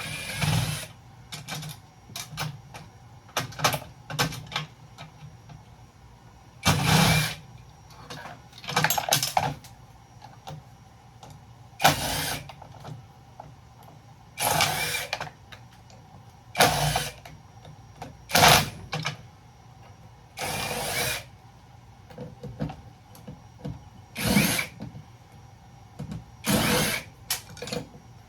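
Power drill run in about a dozen short bursts, each lasting half a second to a second, with small clicks and handling knocks between them, typical of driving screws out of breaker parts during a teardown.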